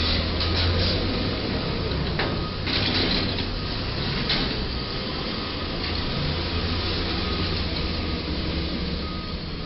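Street traffic: a city bus engine running as the bus drives past in the first few seconds, over a steady low road hum, with a few short knocks.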